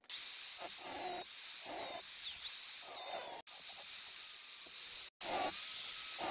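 Angle grinder grinding a small metal part clamped in a vise: a steady hiss with a high whine that sags and recovers as the disc bears on the metal, removing bulk material. The sound breaks off for an instant twice.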